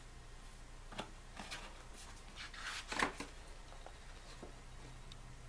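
Pages of a thick-papered photo book being turned by hand: a light tap about a second in, then paper rustling and sliding, loudest about three seconds in, and a few small ticks after.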